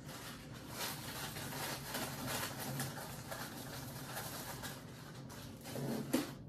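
A dove cooing faintly over a steady hiss.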